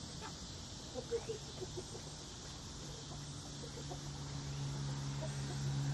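Chickens clucking, a few short notes about a second in, over a steady high insect buzz. A low steady hum swells in the second half.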